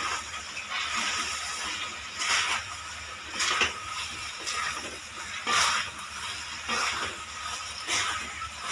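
Fried potato pieces being stirred and tossed in hot chilli sauce in a steel kadai with a wooden spatula and spoon: a steady sizzle with a swishing, scraping stroke about once a second.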